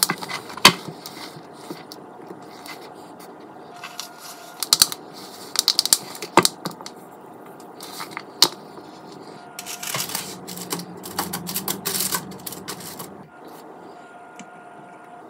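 Scattered taps, clicks and scrapes of cookie dough being scooped and handled in a mixing bowl, with a spatula knocking against the bowl. A busier run of scraping and rustling comes about ten seconds in.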